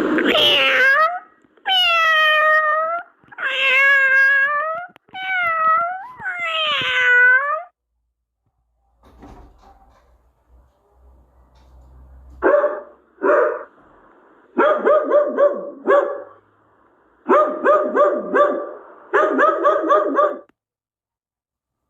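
A cat meowing: five long, drawn-out meows one after another. After a pause, an animal gives several runs of short, quick calls in rapid succession.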